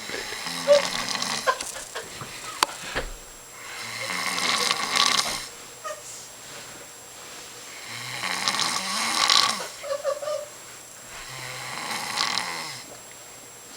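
Snoring: four long, slow snores, one about every three to four seconds, each a rasping rush of breath with quiet pauses between.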